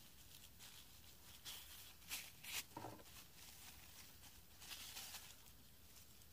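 Faint, scratchy rustles of a plastic-bag strip being handled and wound around a stick to tie on a stone weight, a few short ones about two to three seconds in and again around five seconds.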